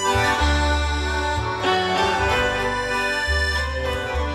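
Background music: sustained chords over a steady bass line.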